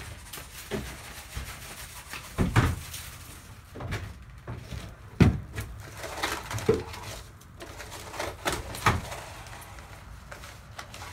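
Irregular knocks and thumps against the wooden boards and floor of a small shed, with rustling, as a person moves about and bends down while hand-spreading barn lime. The loudest knocks come about two and a half and five seconds in.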